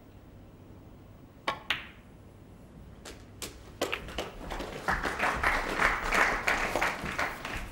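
Snooker balls clicking: a sharp click of the cue tip striking the cue ball and the cue ball hitting the black about a second and a half in, with a few lighter ball clicks a little later. From about five seconds in, the audience applauds the pot.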